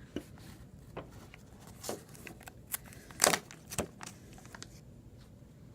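Faint handling noise of plastic toy packaging: a few short clicks and rustles at irregular intervals, the loudest a little over halfway through.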